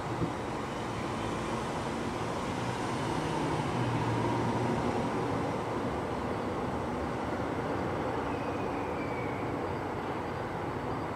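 Steady low rumble of a vehicle passing at a distance, building to a peak about four seconds in and then slowly fading. There is one short pop right at the start.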